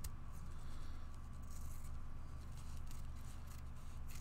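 Faint rustling of a thin disposable face mask being handled and cut open with scissors, with a few soft snips and clicks, over a steady low hum.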